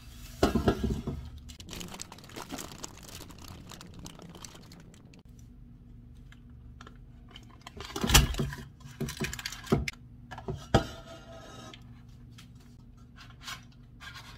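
Kitchen handling noises as dough balls are placed into a paper-lined air fryer basket: light knocks of the basket on the counter, the loudest about eight seconds in, and the paper liner crinkling.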